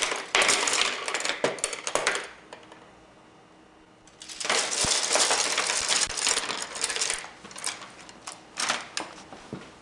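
A bundle of paintbrushes clattering together as they are handled, their handles knocking in dense rattling clicks. Two bouts of rattling, a pause of about two seconds between them, then a few scattered clicks.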